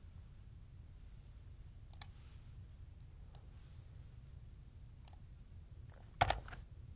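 Computer mouse clicks: three single clicks a second or two apart, then a louder double click near the end, over a low steady background hum.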